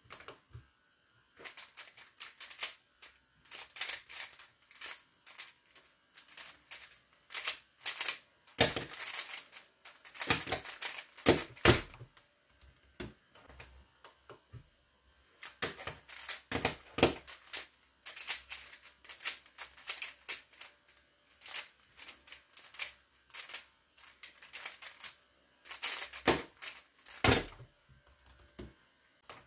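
Plastic 3x3 speed cube being turned fast one-handed: a rapid clicking clatter in two long runs, with a pause of a few seconds in the middle.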